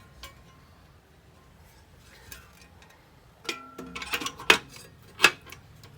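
Vintage Olympia manual typewriter's metal carriage being handled and clicked back into place: quiet at first, then, about halfway in, a run of sharp metallic clicks and clacks, four of them loud, with a brief ringing note.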